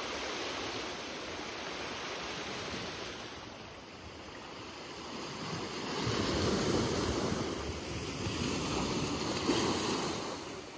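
Small waves breaking and washing up over a beach of dark rounded stones: a steady surf rush that swells louder about halfway in.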